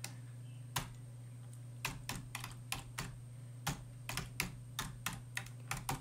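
Typing on a computer keyboard: two isolated key clicks, then a quick irregular run of clicks from about two seconds in, over a steady low hum.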